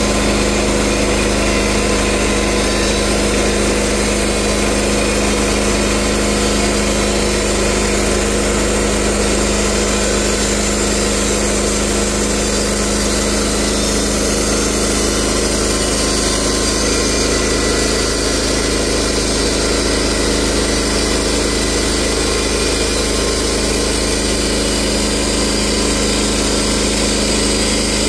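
Portable band sawmill's engine running steadily under load while the band blade cuts lengthwise through a tulip poplar log as the sawhead feeds slowly along it.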